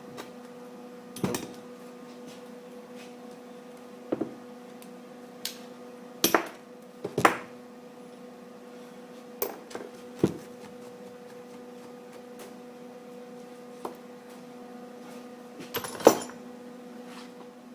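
Scattered metal clanks and knocks of hand tools and parts being handled at a workbench, about a dozen of them, the loudest about 7 and 16 seconds in, over a steady low hum.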